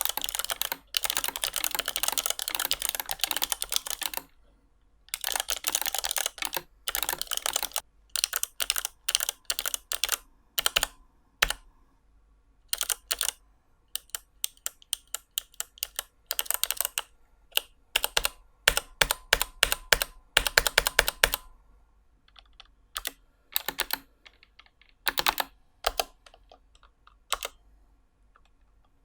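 Typing on a low-profile mechanical keyboard with Outemu Snap Spring blue clicky switches, its clicks made by snap springs. A fast run of keystrokes for about four seconds, a brief pause, then bursts and single presses that thin out and stop near the end.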